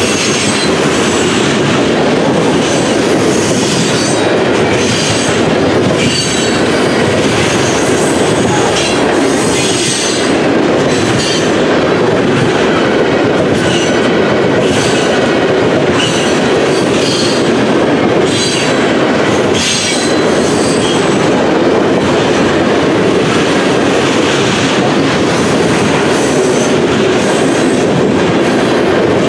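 Freight train's covered hopper cars rolling past: a steady loud rumble of steel wheels on rail, with irregular clicks and short high-pitched screeches from the wheels.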